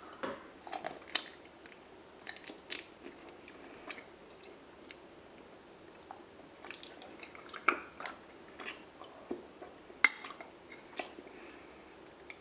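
Close-miked biting and chewing of raw honeycomb, with irregular sticky mouth clicks and smacks; the sharpest come at about eight and ten seconds in.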